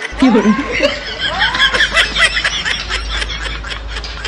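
Laughter: a run of quick, high-pitched laughs that is strongest for about the first three seconds, then weakens.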